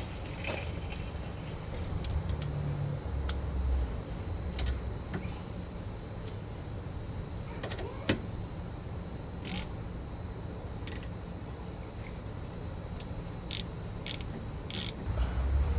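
Brake caliper being bolted back on with a ratchet: scattered sharp metallic clicks and clinks, with a single sharper knock about eight seconds in and a run of clicks in the second half.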